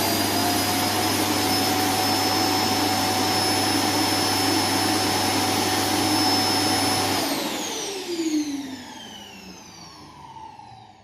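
Suction motor of an iRobot Roomba S9+ robot vacuum running at full power with a steady high whine, then switching off about seven seconds in and spinning down, its whine falling in pitch as it fades. A short knock comes as it winds down.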